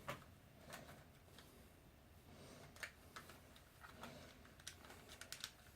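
Faint, scattered clicks and taps of plastic parts being handled as the side grip panels are fitted back onto an Xbox One controller.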